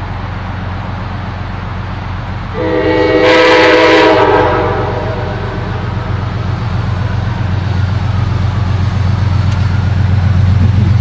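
Amtrak P32AC-DM diesel locomotive sounding its multi-tone horn in one blast of about two seconds, a few seconds in. Under it the locomotive's engine drones steadily and grows louder as the train approaches at speed on a run that does not stop at the station.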